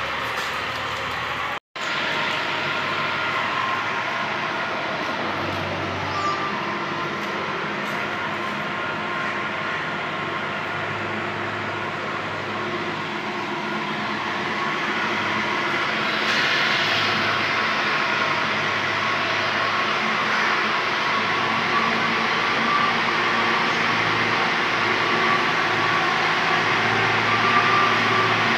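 An engine running steadily, with a brief dropout about two seconds in.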